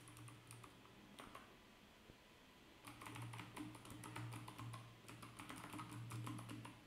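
Faint typing on a computer keyboard: a few scattered keystrokes at first, then a quick run of typing from about three seconds in.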